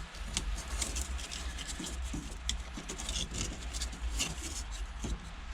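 Small scattered clicks, taps and scratching as an aluminium push-on heater control knob is worked onto the MX-5's HVAC panel, over a steady low hum.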